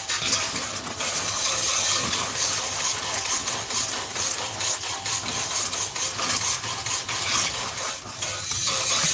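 Metal spoon stirring and scraping round a wok of frothing, bubbling liquid, over a steady sizzling hiss with many quick clicks of spoon on pan.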